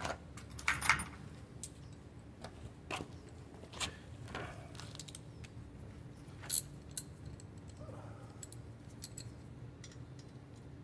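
Metal hand tools clinking and clicking as screws on a small motorcycle's engine and plastics are checked and tightened. Scattered sharp metallic clicks, with a cluster about a second in and a sharper clink about six and a half seconds in.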